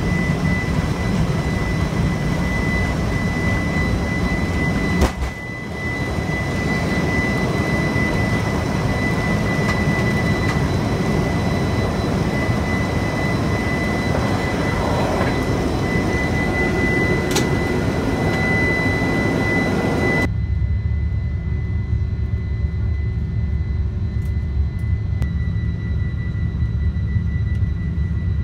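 Airliner jet engines running at takeoff power, heard from inside the cabin as a steady loud noise with a thin high whine over it. About twenty seconds in the sound changes abruptly to a lower, duller rumble.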